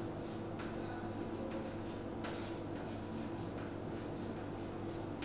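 Chalk writing on a chalkboard: a string of short, irregular scratching strokes over a steady low hum.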